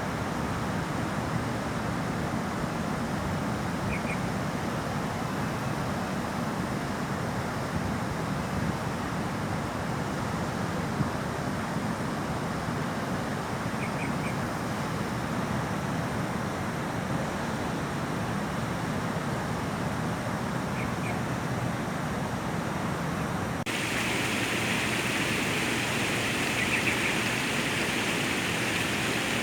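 Waterfall rushing steadily, a constant wash of falling water. About 24 seconds in the sound changes abruptly to a brighter, hissier rush. A few faint short chirps come through now and then.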